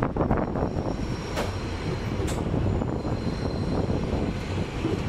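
Rumble of a train rolling into a station, steel wheels running on the rails. Two short sharp clicks come through, about a second and a half and about two and a half seconds in.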